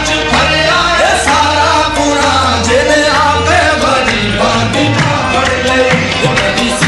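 Qawwali music: singing over a steady rhythm with frequent percussive hand-drum strikes.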